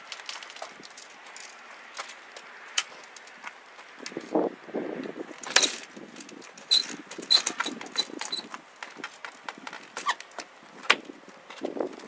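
Pine screen-door frames knocking and bumping against the garage door frame as they are set in place and swung, with a few sharp knocks. A run of small metallic clicks about seven to eight and a half seconds in, from the spring-loaded barrel bolts being worked.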